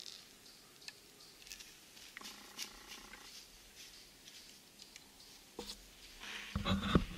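Faint scattered crackles in dry leaves, then from about six and a half seconds loud, uneven low thumps and rumbling from the camera being handled and moved.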